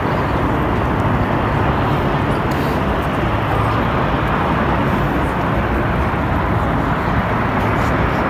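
Steady rushing outdoor noise, even throughout with no distinct events.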